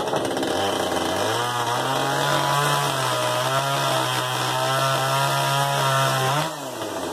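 Battery-powered chainsaw spinning up and cutting through a wooden floor board, its steady motor note dipping and wavering under load. The motor note drops about six and a half seconds in.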